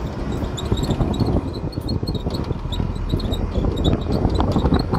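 Bus driving along a bridge: steady engine and road rumble, with uneven gusts of wind buffeting the microphone held at the open window.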